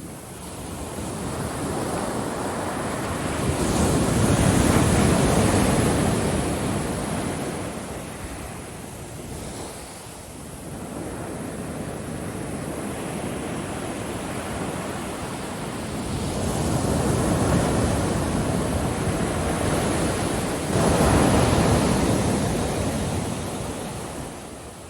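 Ocean waves breaking on a beach and washing back, rising and falling in slow surges: a big one a few seconds in, a smaller swell around the middle, and another strong break in the last third that fades away near the end.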